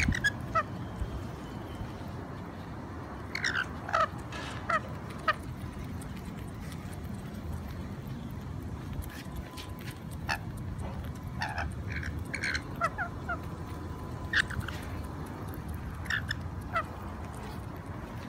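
Rainbow lorikeets giving short chirps and squawks in scattered clusters, over a low steady background rumble.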